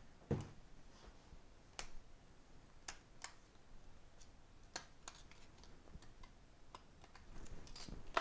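Faint, irregular light clicks and ticks of metal tweezers prying a thin metal shield off an iPad 5's logic board, with a sharper click near the end.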